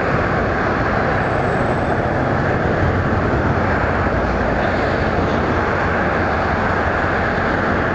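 Road traffic passing on a bridge deck: a loud, steady, even rumble with no breaks.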